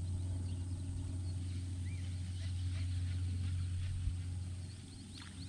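Birds chirping faintly and repeatedly in the background over a steady low hum.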